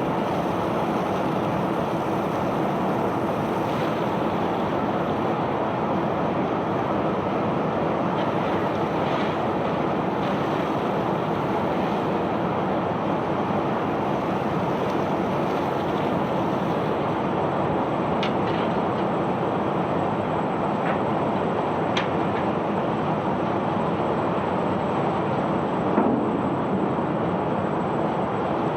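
Self-unloading sand barge discharging sand: a steady, even rush of running machinery and pouring sand, with a faint low hum underneath. A few short clicks and knocks come in the second half.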